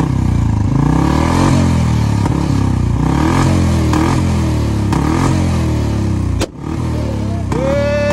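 Royal Enfield single-cylinder motorcycle engine running through its stock silencer, revved up and down about once a second. A brief break comes about six and a half seconds in, and a rising high tone enters near the end.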